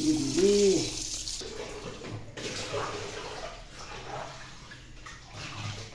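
Kitchen tap water running onto grapes in a plastic colander in a steel sink, cutting off about a second and a half in.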